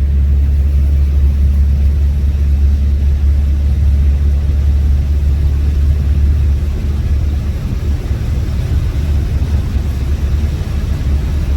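A Renault automatic car running or being driven, heard as a steady low rumble of engine and road that lightens a little about two-thirds of the way through.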